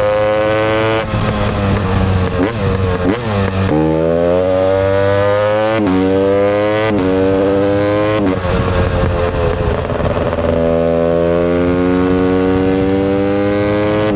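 Husqvarna TE 250i two-stroke dirt bike engine revving under load. Its pitch climbs and then drops sharply about five times in the first eight seconds. It runs rougher and less even for a couple of seconds, then makes one long, steady climb in pitch near the end.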